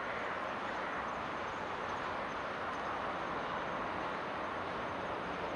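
Steady rushing outdoor ambience with no distinct events.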